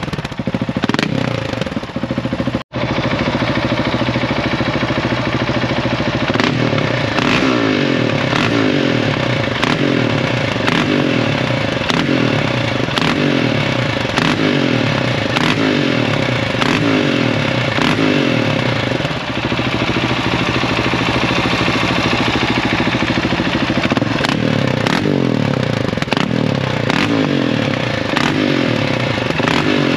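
GasGas SM700's single-cylinder engine revving through an SC-Project CRS exhaust, the throttle blipped over and over about once a second, with sharp cracks between the revs.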